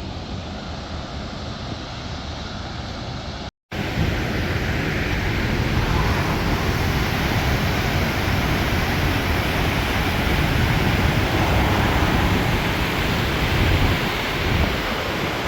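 Steady rushing roar of a waterfall mixed with wind buffeting the microphone; it breaks off for a moment about three and a half seconds in and comes back louder.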